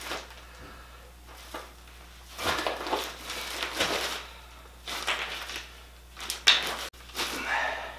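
Pieces of crumbly zeolite-bearing basalt rock being handled and moved about on a plastic tarp. The sound is crunching and scraping of rock fragments, with tarp rustle, in about five short bursts over the last two-thirds.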